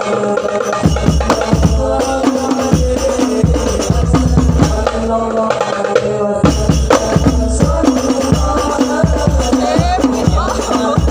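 Instrumental music: hand drums and percussion beating steadily under a held melody and a bass line.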